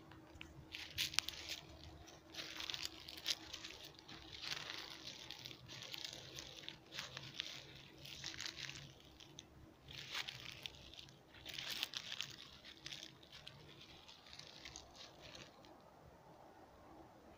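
Footsteps crunching through dry fallen leaves, an uneven crunch roughly every second, dying away near the end.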